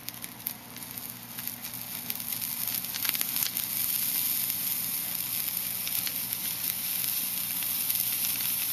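Soldering iron melting solder along fluxed copper foil on a stained glass seam: the flux sizzles steadily with many small crackles and pops, building over the first few seconds and then holding even.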